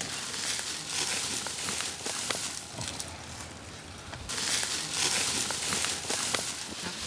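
Rustling and crackling of twigs and leaves with scattered small snaps, swelling twice.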